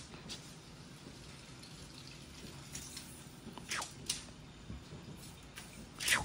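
Cat playing with a feather wand toy: a few short, sharp swishes and taps from the thin wand and the cat's paws on the floor, over quiet room tone. The loudest comes near the end.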